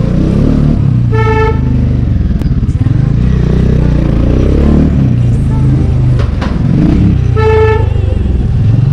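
Bajaj Dominar 400's single-cylinder engine running loud with its exhaust silencer removed, pitch rising and falling with the throttle at low speed. A horn beeps twice, about a second in and again about seven and a half seconds in.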